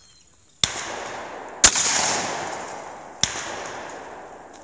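Shotgun shots fired at sporting clays: three sharp reports, the loudest about a second and a half in, each followed by a long rolling echo that fades away.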